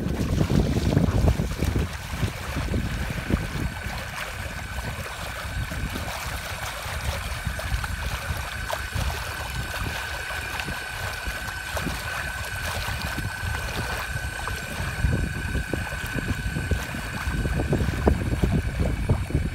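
Wind buffeting the microphone and water rushing past an inflatable kayak moving under a small electric trolling motor. The motor gives a steady high whine from about two seconds in until shortly before the end.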